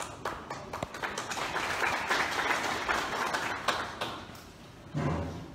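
Audience clapping in a large hall, dying away about four seconds in.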